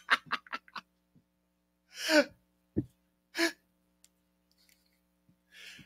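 A man laughing to himself: a quick run of short "ha" pulses in the first second trailing off, then two breathy gasping laughs about two and three and a half seconds in, and a soft intake of breath near the end.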